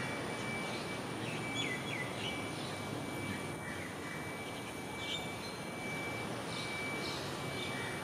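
Steady background noise of an urban park with scattered short chirps from small birds and a thin, steady high-pitched tone.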